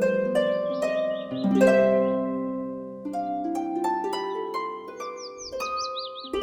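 Relaxing harp music, a steady run of plucked notes that ring and fade. A songbird warbles high over it in the first second and again from about five seconds in.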